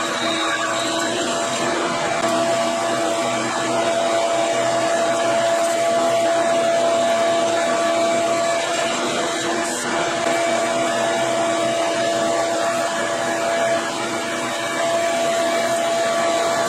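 Metal lathe turning a chrome-moly steel bar under power: a steady machine whine with the rushing noise of the tool cutting, with a brief dip in level near the end.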